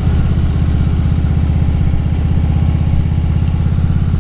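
Harley-Davidson V-twin motorcycle engine running steadily with an even, low pulse.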